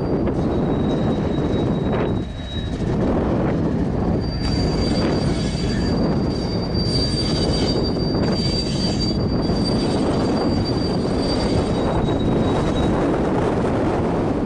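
Freight train rolling past with a steady rumble of the cars on the rails, and a thin, high wheel squeal that comes and goes over it.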